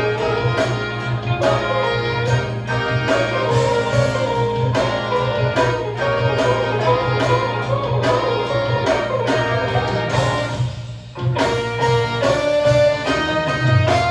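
Instrumental music played back over a hi-fi system driven by an 807 single-ended tube amplifier, with sustained string-like tones over a steady beat and a brief lull near the end.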